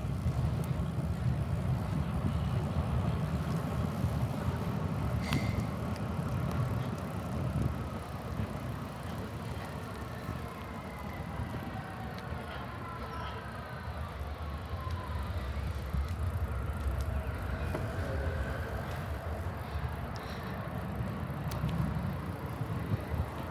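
Wind rumbling on the microphone with tyre and road noise during a bicycle ride. Through the middle a passing vehicle is heard faintly, its pitch sliding down as it goes by.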